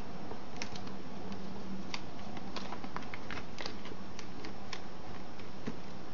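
Origami paper being folded and creased by hand on a wooden table: a run of irregular sharp crackles and taps as the folds are pressed flat, over a steady background hiss.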